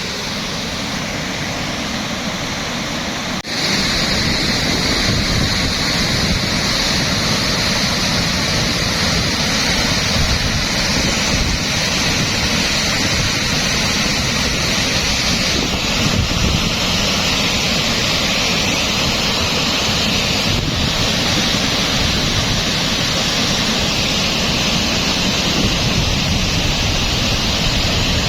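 Floodwater from a flash flood rushing steadily in a loud, continuous wash of noise. It gets louder about three and a half seconds in.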